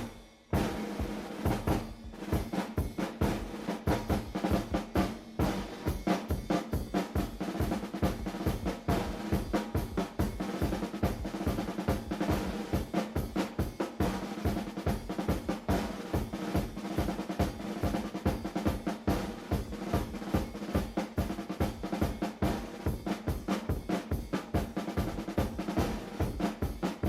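Drum kit played in a fast, busy pattern: rapid snare hits and rolls with bass drum underneath, continuous after a brief pause just after the start.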